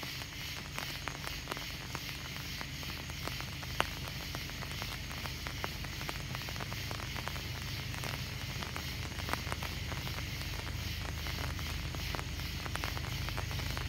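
Rain pattering and ticking close to the microphone, over a low steady rumble that grows slowly louder as a diesel-led coal train approaches.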